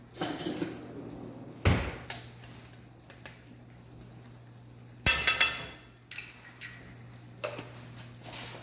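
Cooking utensil clattering and knocking against a pan of chicken pesto: a few separate clatters, one just after the start, a sharp knock about a second and a half in, and the loudest cluster about five seconds in, with lighter clicks after.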